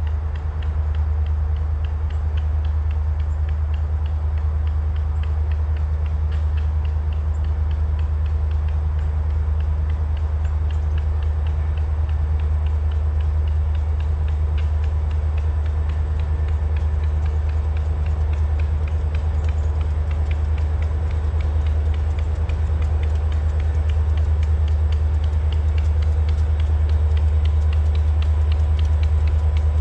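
Freight train rolling past with a steady low rumble, a faint steady whine and a fast, even ticking over it, growing slightly louder near the end.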